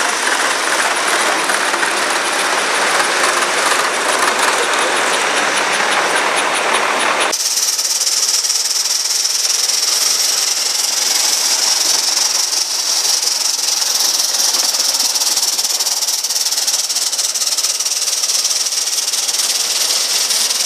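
Gauge one live steam locomotive and its train: a wide rushing noise as the train runs past, then, after a sudden change about seven seconds in, a steady high hiss of escaping steam.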